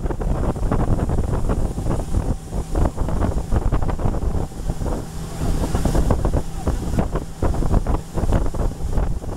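Heavy wind buffeting the microphone of a moving boat, over the low steady drone of its motor and water rushing along the hull.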